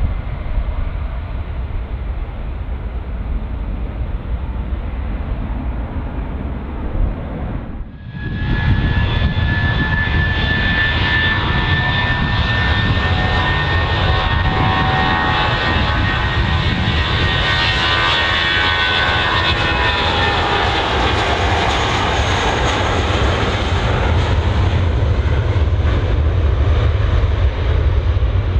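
Jet airliner engines: a steady low rumble, then, after a brief break about 8 s in, a louder rush with a high engine whine whose pitch slowly falls as the aircraft passes.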